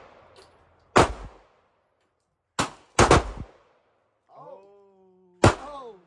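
Glock 26 9mm pistol firing four shots at an uneven pace, each sharp crack trailing off in a short ring. A brief voice sounds just before the last shot.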